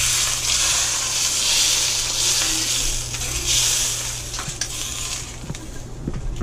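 Smoking-hot peanut oil poured over steamed island goatfish (munu) and ginger, sizzling and crackling hard in a few surges, then dying down over the last couple of seconds.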